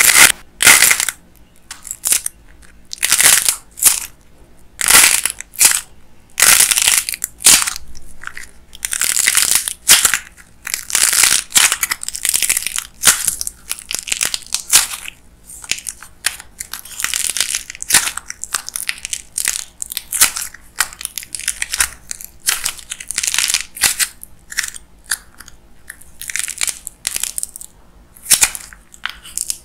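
Dried glossy coating on a lightweight-clay popsicle crackling and crunching as hands squeeze and break it, in many short bursts with brief pauses between them. The soft, foamy clay underneath is torn and pulled apart as the shell breaks up.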